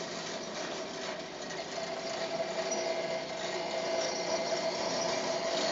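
Foley 355 knife grinder running: a steady machine whine with an even grinding hiss as the grinding wheel works along the planer knives while the DC-motor-driven carriage traverses.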